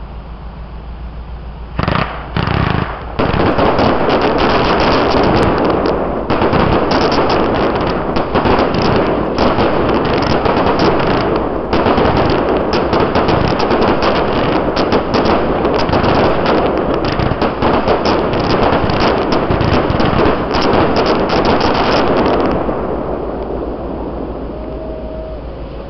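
Fireworks going off: two separate bangs about two seconds in, then a dense run of rapid popping and crackling from aerial bursts for about twenty seconds, fading away near the end.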